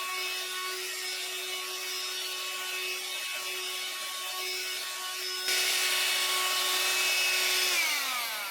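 Cordless hand-held vacuum cleaner's motor running with a steady whine. It gets suddenly louder and hissier about five and a half seconds in. Near the end it is switched off, and its pitch falls as it spins down.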